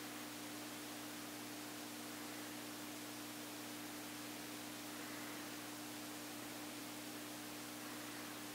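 Steady hiss with a low, even electrical hum: room tone with no distinct events.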